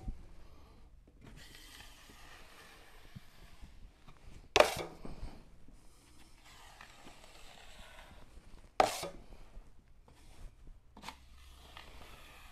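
Drywall taping knife spreading and scraping joint compound along a wall seam, a faint steady scraping, broken twice by a sharp clack of the knife against the metal mud pan, about four and nine seconds in.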